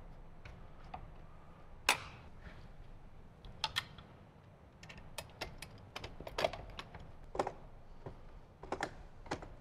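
Irregular small clicks and taps of a hand screwdriver and bolts against the metal gauge-cluster bracket as bolts are driven in by hand, with one sharper click about two seconds in.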